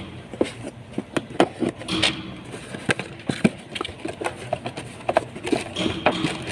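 Irregular clicks and knocks of a new fuel filter and its parts being handled, over a faint steady hum.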